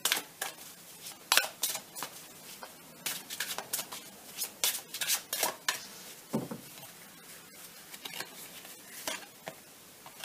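A Lenormand card deck being handled on a table: shuffled and cards laid out, making a scattered run of sharp clicks and snaps, busiest in the middle.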